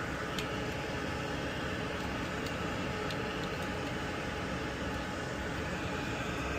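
Steady fan-like hum and hiss, like a fan or air conditioning running, with a few faint light clicks over it.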